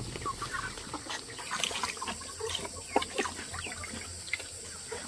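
Chickens clucking: scattered short clucks and small chirps.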